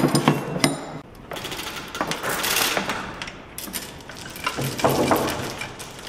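Steel lifting chain rattling and clinking against a backhoe's rotary swing cylinder, with scattered sharp metal knocks.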